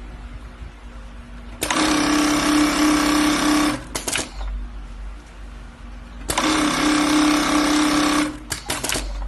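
Golden Choice GC-6003-UT-D pneumatic string lasting machine stitching a shoe upper to its insole in two short runs of about two seconds each, with a steady hum while it sews. Each run ends with a few sharp clicks.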